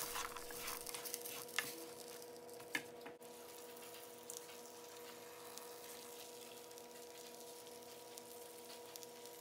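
Boiling water poured from a kettle over chopped vegetables in a large pot, faint, with a few light knocks in the first three seconds and a steady faint hum underneath.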